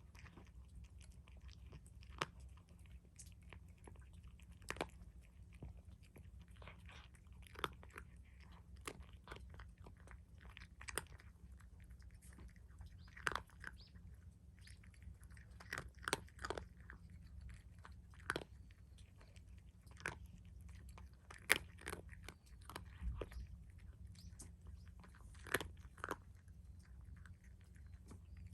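A cat chewing and crunching its food, with irregular sharp crunches every second or so over a faint low hum.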